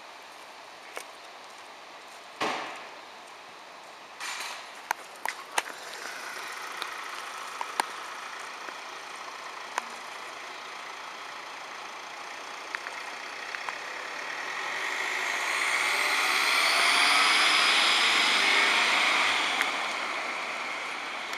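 Mercedes-Benz Sprinter ambulance leaving: a door slams with a sharp bang about two and a half seconds in, followed by several lighter clunks and clicks. The engine then runs and the van pulls out, its engine and tyre noise swelling to loudest as it drives past near the end.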